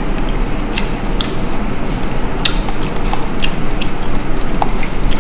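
Eating sounds from mixed rice being eaten by hand: scattered small clicks and smacks, about ten in all, irregularly spaced. They sit over a steady, fairly loud background hum and hiss.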